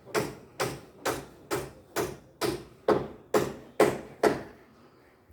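Repeated sharp striking blows at a steady pace, about two a second, each ringing briefly, stopping a little over four seconds in.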